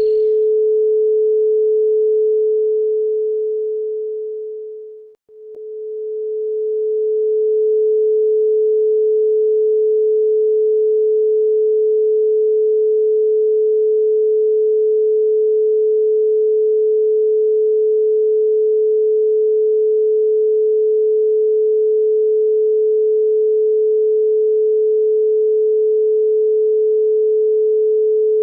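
A pure sine tone at 432 Hz, held steady with no overtones. It fades out to silence about five seconds in, then swells back up within a couple of seconds and holds steady.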